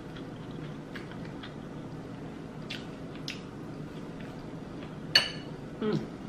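Close-up eating sounds: chewing with scattered soft mouth clicks and a sharper click about five seconds in, over a faint steady hum.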